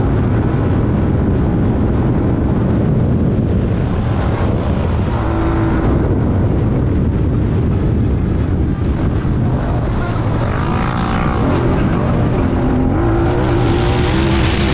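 Honda Talon 1000R's parallel-twin engine running hard at race speed, heard from the cockpit under a loud, steady rumble of wind and ground noise. A hiss rises near the end.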